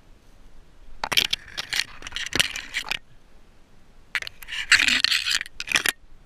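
Dry marsh grass and twigs rustling and crackling close to the microphone as hands pull through them, in two bursts of crunching and snapping, the second about four seconds in.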